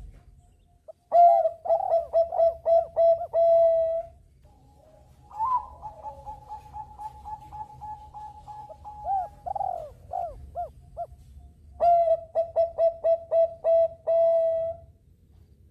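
Zebra dove (perkutut bangkok) cooing in three bouts of rapid staccato notes, the middle one with a long drawn-out note.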